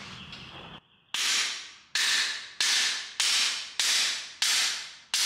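Cam bearing tool's driver bar being struck, seven sharp metallic blows about two-thirds of a second apart, each ringing briefly and dying away. A camshaft bearing is being knocked out of an LS V8 engine block.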